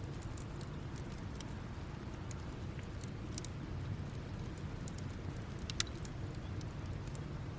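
Campfire burning down to embers, crackling with scattered sharp pops, the loudest about six seconds in, over a steady low rumble.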